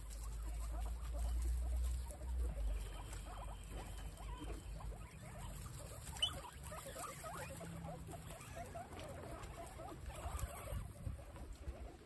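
A group of guinea pigs munching and tearing fresh grass, a dense run of small crunching and rustling sounds from grass and straw. Wind rumbles on the microphone for the first few seconds.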